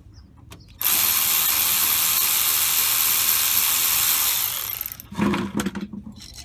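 A cordless power tool runs steadily for nearly four seconds with a thin high whine, spinning the screw of a radiator-hose clamp loose, then stops. The clamp is being loosened to drain the coolant.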